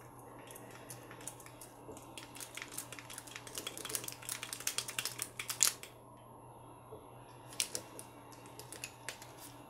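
Small clicks and rattles from handling the plastic parts of an RC crawler's rear axle while a hex driver turns a small kingpin screw into the knuckle. The clicks come in a quick irregular run from about two to six seconds in, with two more near eight seconds.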